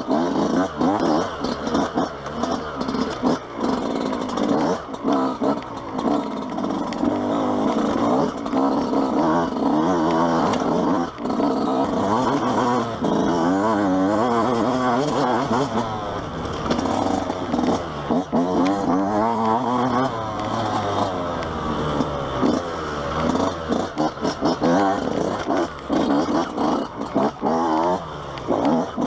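Yamaha YZ125 single-cylinder two-stroke dirt bike engine under way, its pitch rising and falling over and over as the throttle is worked. Frequent short knocks and clatter from the bike run through it.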